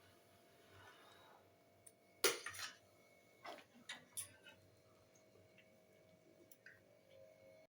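A handful of light clicks and knocks of kitchen utensils on a cooking pan, the loudest a little over two seconds in, with most of them in the first half.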